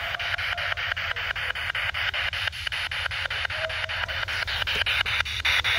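SB7 spirit box sweeping through radio stations in reverse: choppy radio static broken by rapid, evenly spaced clicks as it jumps from frequency to frequency, with a brief faint tone about two thirds of the way through.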